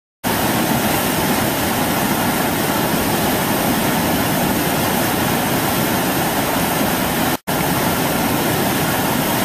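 Loud, steady rushing of a fast flood torrent of river water surging around a stranded truck. It cuts out for a moment about seven and a half seconds in.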